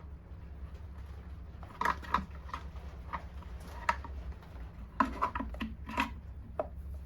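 Irregular small clicks and knocks of objects being handled and set down on a workbench, over a steady low hum.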